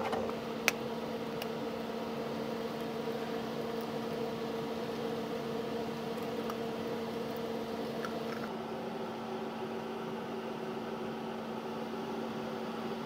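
A steady hum and even hiss while eggs and grated sweet potato cook in a cast iron pan on a propane stove, with a sharp clink of a utensil on the pan about a second in.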